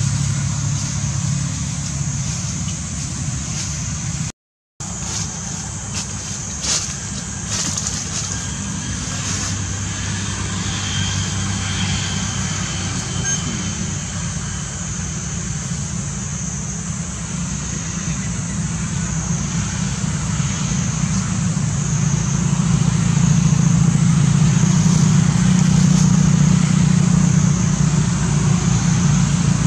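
Steady low engine rumble, like a motor vehicle running close by or passing traffic. The sound cuts out for a moment about four seconds in and gets louder over the last several seconds.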